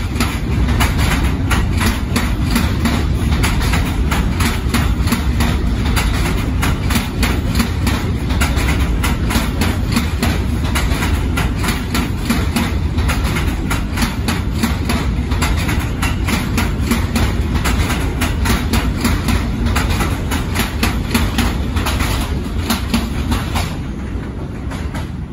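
An NYC Subway R211A train running through an elevated station at speed without stopping: its wheels clatter rapidly over the rail joints over a steady low rumble. Near the end the clatter stops and a quieter rumble remains.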